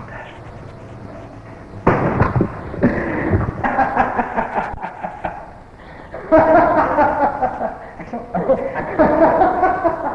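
A man laughing loudly in repeated bursts. The laughter breaks out suddenly about two seconds in and swells again about six seconds in.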